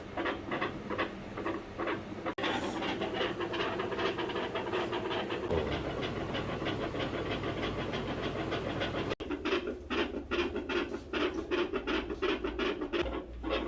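Dogs' heartbeats heard through a stethoscope: a fast, regular run of beats over breathing noise, in short recordings from different dogs joined by cuts about two and nine seconds in.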